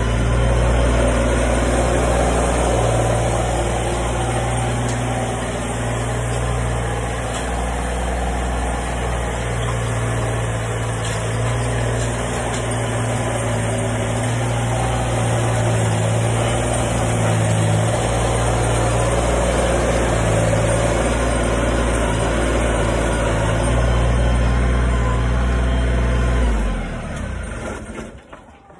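Compact Massey Ferguson tractor engine running steadily while it pulls a chisel plow through the frozen coop floor, its pitch shifting slightly as it works. Near the end the engine sound dies away.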